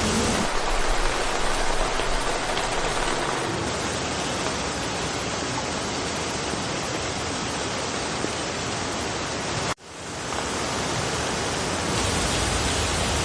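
Steady rain falling through a forest, an even hiss. About ten seconds in it cuts out abruptly and swells back over a second or two.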